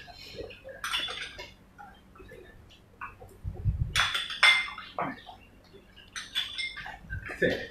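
A metal utensil clinking against a glass mixing bowl: several separate ringing clinks, loudest about four seconds in, with a dull low thud just before.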